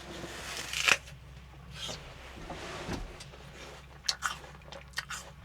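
Rustling and scraping with a few short, sharp clicks and knocks, like something being handled or brushed.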